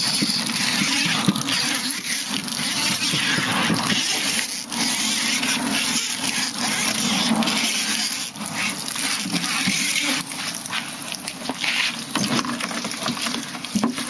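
Water poured from a jug into a room air conditioner's outdoor coils, splashing through the fins and running out of the unit in a steady rush that briefly eases a couple of times. The coils are being flushed of mold and mildew remover.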